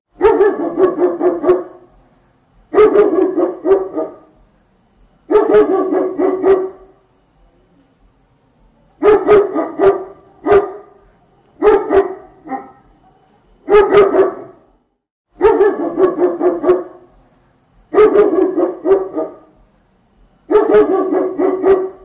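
A dog barking in bursts of quick barks, about ten bursts, each lasting a second or so and coming every two to three seconds.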